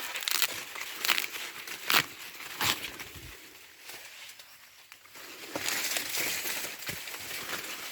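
Dry corn leaves and husks rustling and crackling as green ears of corn are handled and picked from the stalks. There are several sharp snaps in the first three seconds and a denser rustle near the end.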